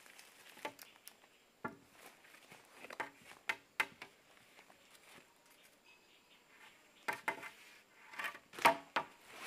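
Wooden branches knocking and rubbing against each other as long poles are laid across a shelter's crossbar: scattered sharp knocks, several close together near the end, the loudest about a second before the end.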